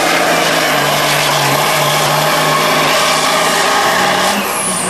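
Diesel pickup truck pulling a sled at full throttle, its engine running loud and steady. Near the end a high whistle falls in pitch.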